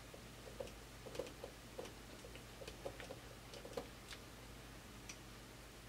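Faint, irregular small metal clicks as a screwdriver drives a steel screw into a nut held with a small wrench, tightening a brass kit part onto an RC crawler's axle. About a dozen ticks come in the first four seconds, then they thin out, with one more about five seconds in.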